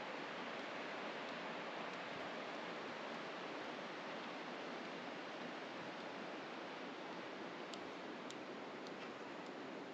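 Steady rushing of a mountain waterfall below, an even hiss of falling water, with a few faint ticks near the end.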